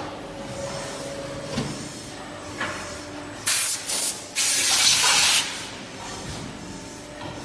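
Compressed-air blow gun hissing in three blasts, two short ones and then a longer one of about a second, cleaning powder off the open mould of a melamine compression-moulding press. A low machine hum runs under it.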